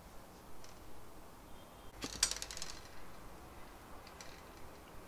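Small metal parts clinking as screws and brackets are fitted by hand onto an aluminium extrusion rail: a quick burst of clinks about two seconds in, with a few faint ticks before and after.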